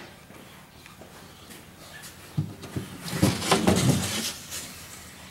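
Wooden knocking and rattling from parts of a wooden toy barn being handled, starting about two seconds in and lasting about two seconds.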